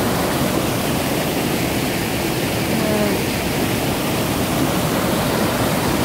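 A rain-swollen mountain stream pouring over a small cascade: a steady, loud rush of water that stays even throughout. The stream is running high and muddy after days of heavy rain.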